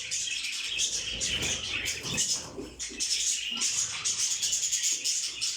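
Many caged birds, budgerigars among them, chirping and chattering at once in a dense, continuous twitter.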